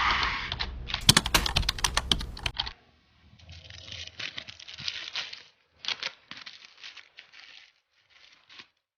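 Packaging being handled and opened by hand: dense clicking and rustling in several short stretches, loudest and sharpest in the first three seconds, then quieter patches of crinkling and tapping.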